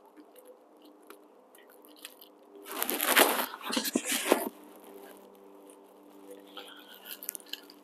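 Close handling noise as fingers thread a small hex nut onto a tire valve stem. A brief crunching rustle comes about three seconds in, over a faint steady hum.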